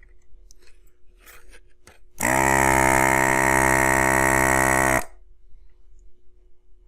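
Hakko FR-301 desoldering gun's built-in vacuum pump switched on for about three seconds. It makes a loud, steady buzzing hum that spins up briefly at the start and cuts off suddenly as it sucks molten solder from the HDMI port's pins. Faint clicks come before it.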